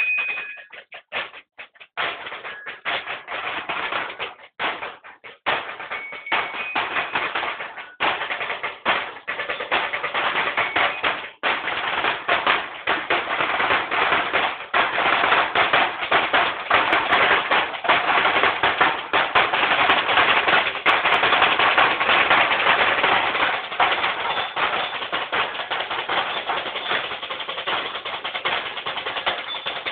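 Drum and lyre corps practising. A few bell lyre notes ring out near the start over sparse drum strokes. From about twelve seconds in, the snare drums play a fast, dense, continuous stream of strokes.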